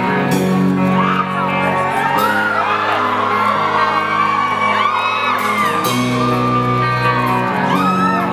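Live band holding sustained low chords while audience members whoop and scream over it.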